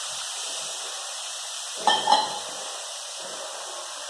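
Besan (gram flour) sizzling steadily in hot ghee in a kadhai. About two seconds in come two quick metallic clinks against the pan.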